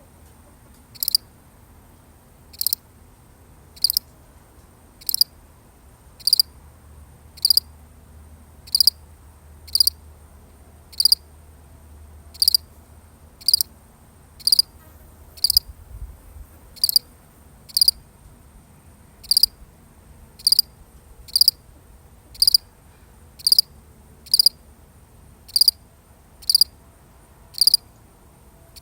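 A single field cricket chirping: short, high chirps repeated evenly, about one a second, a little faster toward the end.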